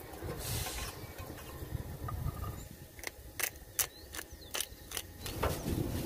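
Hand-held spice grinder being twisted: a run of quick ratcheting clicks, about four a second, lasting about two seconds in the second half, over a low wind rumble on the microphone.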